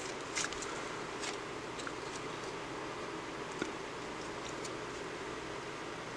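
Soft handling of a stack of 1994 Upper Deck Collector's Choice baseball cards, a card slid off the front to show the next: a few faint clicks and rustles over a steady background hiss.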